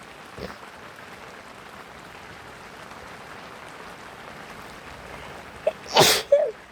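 Steady hiss of rain falling. Near the end a person with a cold gives a short 'ah' and then sneezes loudly once, with a brief vocal sound right after.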